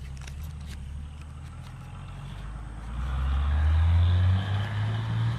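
A jeep's engine running, then louder and rising in pitch about three seconds in as it accelerates.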